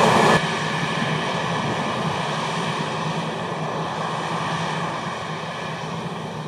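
Heavy harvest machinery running steadily: a diesel engine's drone with a constant high whine over it. It drops abruptly in level about half a second in.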